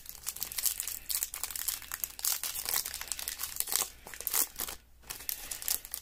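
Foil wrapper of a Topps 2021 Series 1 baseball card pack crinkling and tearing as it is handled and opened, a dense run of crackles that eases briefly near the end.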